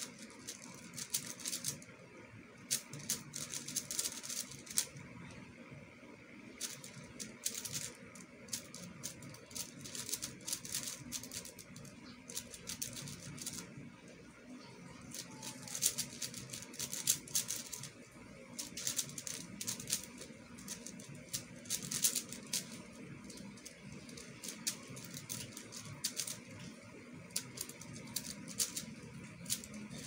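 Plastic speed cube being turned fast by hand: rapid runs of clicking and clacking layer turns, thinning out briefly now and then.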